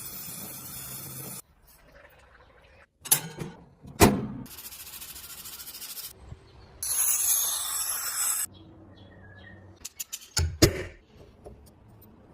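Workshop restoration sounds on an antique plant cutter, in separate short takes: a steady machine noise that cuts off, sharp metal knocks and clicks, and two spells of steady hissing, the second louder.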